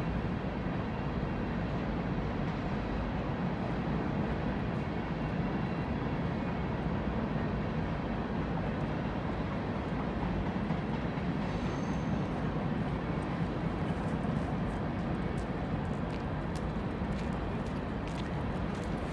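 Steady low outdoor rumble with no distinct events, with a brief faint high tone about twelve seconds in.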